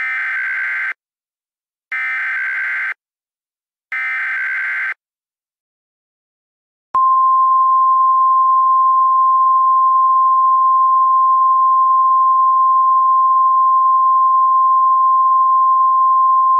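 Emergency Alert System SAME header: three one-second bursts of digital data tones, a second apart, the coded start of an alert. About seven seconds in, a single steady alert tone near 1 kHz begins, the National Weather Service 1050 Hz warning alarm tone.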